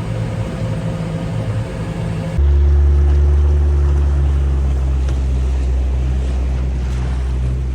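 Boat engine running steadily under way. About two and a half seconds in, the sound changes abruptly to a louder, deeper engine drone.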